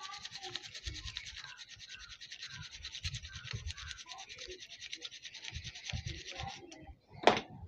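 A small metal tool scraping rapidly over the copper windings of a CRT TV deflection yoke coil, a fast rasping of many short strokes, cleaning the spot where the winding shorted. The scraping stops about a second before the end, followed by a single knock.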